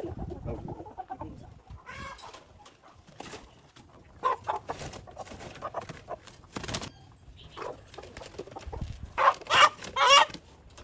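Chickens squawking and clucking in short, scattered calls as they are handled, with a burst of loud squawks about nine seconds in.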